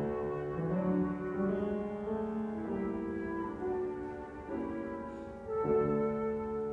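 Flute and grand piano playing a classical piece together, the flute holding sustained notes over piano chords. New chords are struck at the start, about four and a half seconds in, and again a second later.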